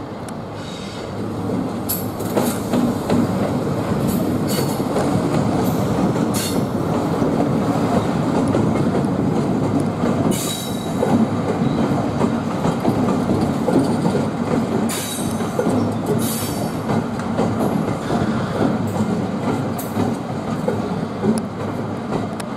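Convoy of Colas Rail Freight Class 70 diesel-electric locomotives passing slowly at close range: a steady engine and running rumble that grows louder about two seconds in, with irregular sharp clacks of wheels over rail joints and points.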